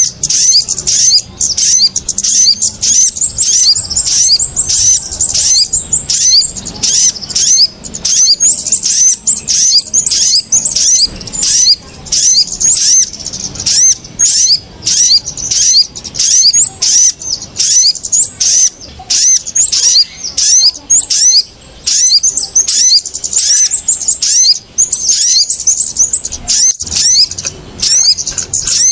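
Bird-lure recording of small birds calling in an agitated, noisy chorus, sold as kemade and sogok ontong (spiderhunter) calls: an unbroken run of short, sharp, high-pitched chirps, several a second. It is the excited calling played to draw small birds down to the lime sticks.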